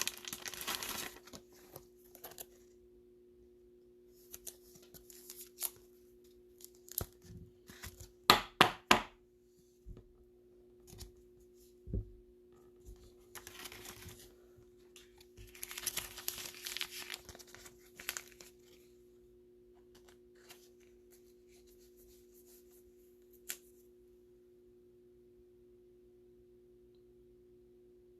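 Crinkly plastic rustling in several bursts as trading cards are slid into soft penny sleeves and rigid plastic top loaders, with a few sharp plastic clicks about eight seconds in and another near twelve seconds. A faint steady hum runs underneath.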